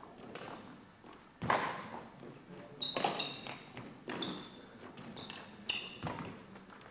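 Badminton singles rally: about four sharp hits and thuds from racket strikes on the shuttlecock and players' feet landing on the wooden court, with short, high shoe squeaks in the second half.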